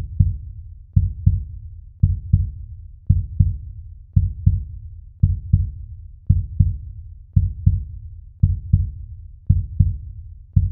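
Heartbeat sound effect: deep double thumps in lub-dub pairs, a little under one pair a second, each thump dying away quickly.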